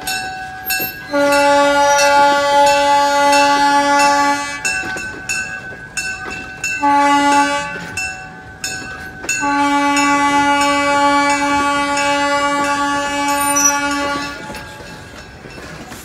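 Steam locomotive's chime whistle blowing the end of the grade-crossing signal: a long blast, a short one, then a final long blast that stops about two seconds before the end.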